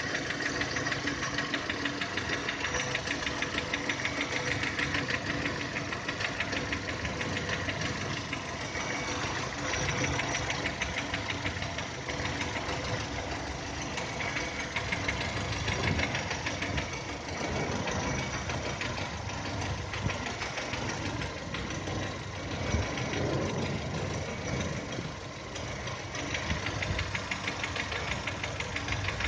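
A 2010 VW Touran's 1.6 BSE petrol engine idling with a rapid, even knocking. It is a cold-engine knock that appears at idle below 1000 rpm and quietens as the engine warms up.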